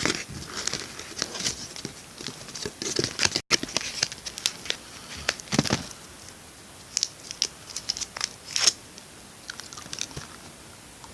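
Irregular soft clicks and crinkles close to the microphone: a piece of chewing gum being chewed, with some rustling of its wrapper.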